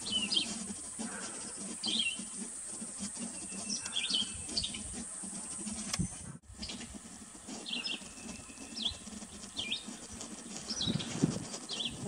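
Red-eyed vireo singing: short, high whistled phrases repeated about once a second with brief pauses between them, over a steady hiss.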